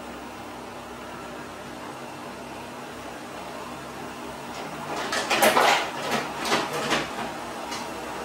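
A cat rummaging in an open cabinet drawer: after a few seconds of steady hiss, a burst of rustling and scraping about five seconds in, fading out over the next two seconds.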